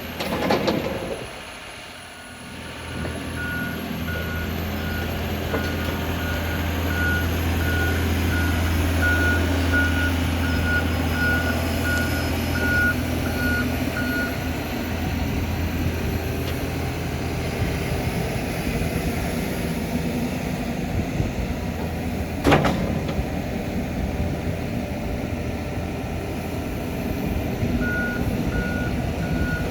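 John Deere 290G LC hydraulic excavator running, its diesel engine humming steadily while its motion alarm beeps at a high pitch about once a second. The beeping stops about halfway through and starts again near the end. A single sharp clank stands out a little after 22 seconds.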